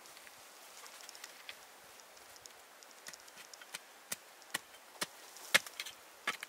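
A series of sharp knocks or strikes, sparse and faint at first, then coming about twice a second in the second half, the loudest near the end.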